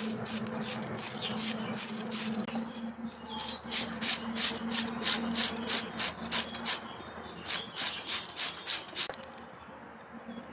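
A radish being shredded on a grater, rhythmic rasping strokes about two to three a second that stop about nine seconds in. A steady low hum runs underneath.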